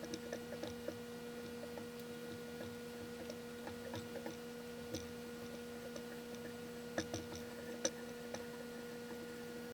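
Faint, irregular light ticks and clicks of a hand tap being worked into a drilled steel nut to cut threads, over a steady hum.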